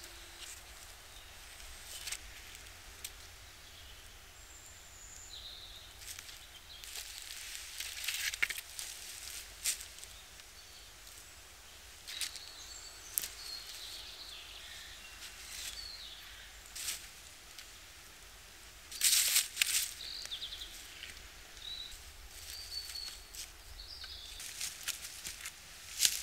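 Sticks and dry leaf litter rustling and crackling as long branches are handled and leaned into a shelter frame, with footsteps on the leaf-covered floor; the loudest burst of crackling comes about two-thirds of the way through. Birds chirp briefly now and then in the background.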